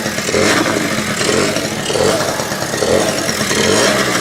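Honda Spree scooter's small two-stroke engine running just after starting on a freshly cleaned carburetor, its note rising and falling about once a second.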